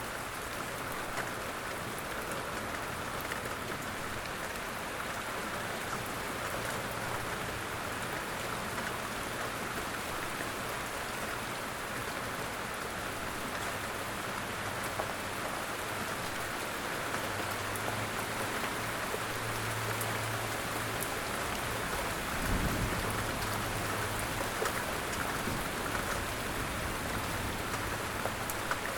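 Light rain falling steadily, with many small drops ticking through the hiss. A brief low thump comes about three-quarters of the way through.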